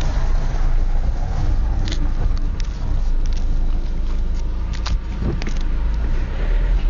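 Car driving, heard from inside the cabin: a steady low rumble of engine and road noise, with scattered sharp clicks and ticks.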